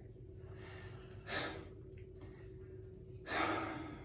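A man taking two sharp, loud breaths, about a second in and near the end, as he braces himself to get into a cold bath.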